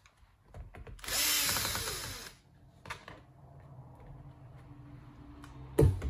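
Cordless electric screwdriver whirring for about a second as it backs out a laptop's bottom-cover screw, with a few clicks after. A sharp knock comes near the end.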